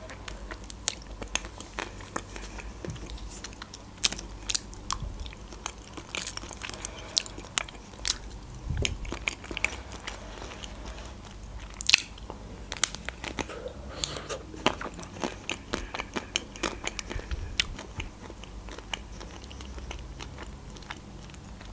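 Close-miked biting and chewing of a white-chocolate-coated ice cream bar: the thin chocolate shell cracks in sharp, irregular crackles, with soft chewing and mouth sounds between them.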